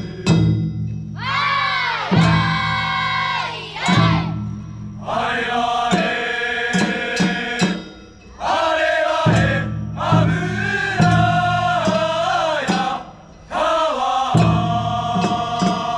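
Group of voices chanting and calling out together in long, drawn-out phrases that swoop in pitch, with short breaks between calls: the festival chant of a Nagasaki Kunchi kawabune (river-boat float) performance.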